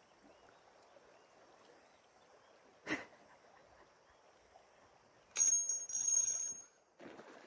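Spinning reel's drag buzzing in loud bursts as a hooked fish pulls line, starting about two-thirds of the way in, with a short break near the end. A single sharp knock comes about three seconds in.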